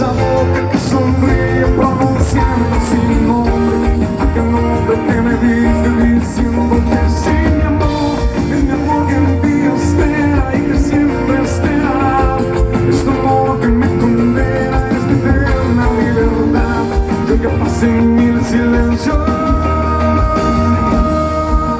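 Live band playing a rock ballad with guitar, loud and steady, with a long high note held near the end.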